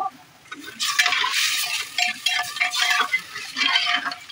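Metal slotted spoon stirring arhar dal and freshly added water in a pressure cooker pot: sloshing liquid with the spoon scraping and clinking against the pot, starting about a second in.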